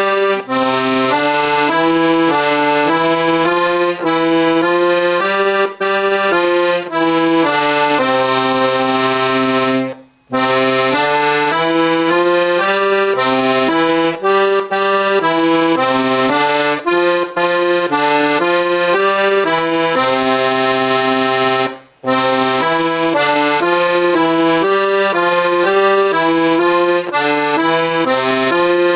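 Bugari Armando piano accordion playing a simple melody, one note at a time, over lower accompanying notes. The playing stops briefly twice, about ten and about twenty-two seconds in.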